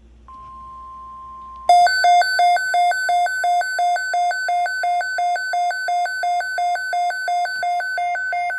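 NOAA Weather Radio alert heard on a Midland WR-120 weather radio. First comes a steady single-pitch warning tone. About a second and a half in, the radio's much louder built-in alarm starts: rapid electronic beeps, about three a second. Together they signal an incoming severe thunderstorm watch alert.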